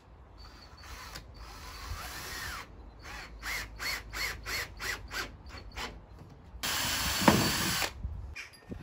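Makita cordless drill running under load into MDF and timber. It runs for a couple of seconds, then gives a string of short trigger bursts about three a second, then a louder run near the end.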